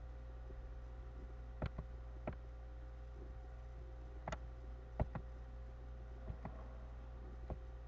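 Scattered light clicks and taps, about nine of them at irregular intervals, over a steady low hum.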